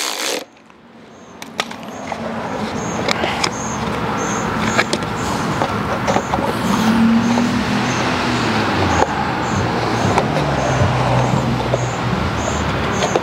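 An engine running, building up over the first few seconds and then holding steady, its pitch shifting a little. A few light clicks and knocks sound over it.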